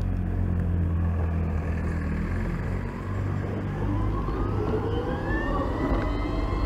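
BMW CE 04 electric scooter's motor whine rising in pitch as it accelerates, starting about halfway through and levelling off near the end, over a steady low rumble of wind and road.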